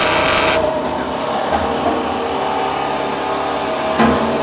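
Electric arc welding steel, crackling loudly, stops about half a second in, leaving a steady hum. About four seconds in comes a single sharp metal knock, a tool striking the fresh weld on the handle.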